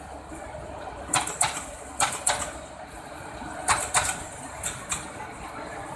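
Commuter train wheels clattering over rail joints: sharp clacks, mostly in pairs about a third of a second apart, the pairs coming roughly once a second over a steady low rumble.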